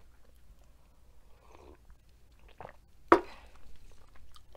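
Soft drinking sounds from a ceramic mug, then one sharp knock about three seconds in as the mug is set down on the table.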